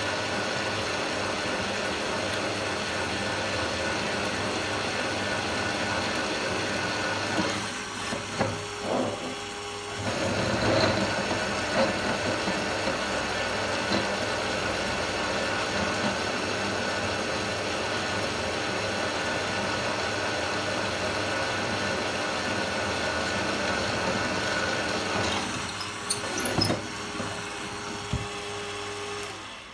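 Benchtop drill press motor running steadily as the bit cuts through aluminium plate, with a short lull and a few knocks about eight seconds in, and a few more knocks near the end.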